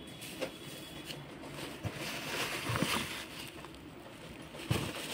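Plastic bags crinkling and cardboard rustling as hands rummage in a cardboard box, with a few short knocks; the rustle is loudest in the middle.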